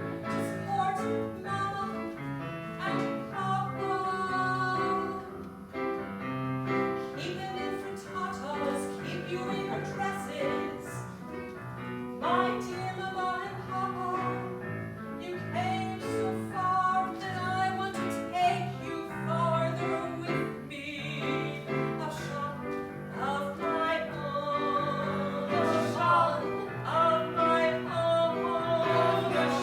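A woman singing a solo song with instrumental accompaniment.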